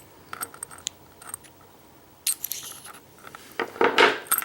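Small metal parts of a pin-tumbler lock cylinder clicking and clinking as the plug is twisted and worked out of its housing. There are scattered light clicks, then a brighter clink about two seconds in and a louder scraping rattle near the end.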